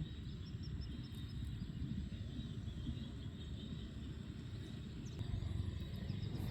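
Outdoor ambience: steady low wind noise on the microphone, with faint short runs of high ticking chirps near the start and again near the end.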